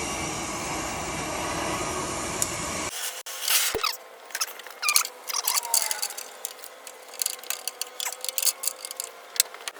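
Handheld torch hissing steadily as it heats a seized exhaust O2 sensor to loosen it, cutting off suddenly about three seconds in. Sharp metal clicks, scrapes and short squeaks of tools being handled and fitted follow.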